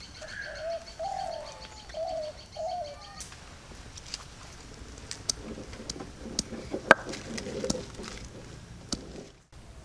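A dove calling outdoors: four low cooing notes in the first three seconds, with a fast, high, steady chirping behind them. Then come a few seconds of scattered sharp clicks and knocks, one much louder near the middle.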